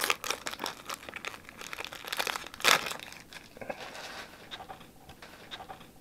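Foil wrapper of a Pokémon TCG booster pack crinkling and tearing as it is opened. It is busiest in the first three seconds, with the loudest crackle nearly three seconds in, then it thins to soft rustles.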